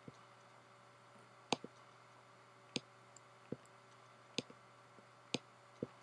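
Faint computer mouse clicks: about seven short, sharp clicks at irregular intervals, a few coming as a quick double click, over a faint steady hum.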